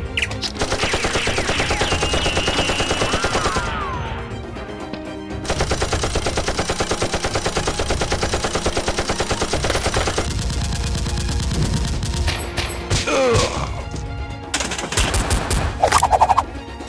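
Rapid automatic gunfire in two long bursts, then scattered single shots, the loudest near the end.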